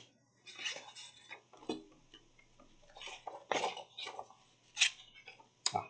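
Paper and packaging being handled close by: irregular rustles with several sharp clicks and light knocks, the loudest about five seconds in.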